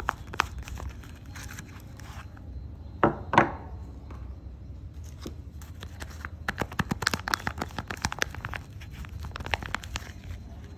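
Close-up handling of soap bars and their paper or plastic wrapping: quick crinkles and crackles, with two louder rasping strokes about three seconds in and a dense run of crackling in the second half.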